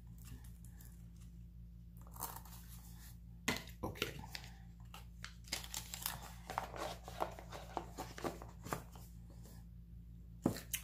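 Packaging being handled and unwrapped: crinkling and rustling with scattered sharp clicks, coming in irregular clusters and busiest past the middle. A steady low electrical hum sits underneath.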